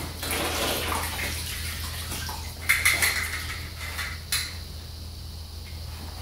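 Baking soda shaken from its box into a plastic-lined tub of vinegar water, a splashing wash at first, then a few sharp clicks and rattles about three seconds in and again a little later.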